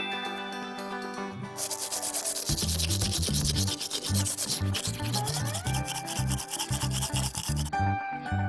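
A rapid, steady rubbing or scrubbing sound of quick repeated strokes lasts about six seconds, starting about a second and a half in, over light background music.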